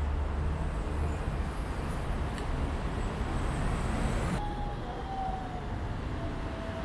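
Street traffic ambience: a steady road-traffic rumble. A little past the middle the sound changes suddenly, and a faint tone glides slowly downward.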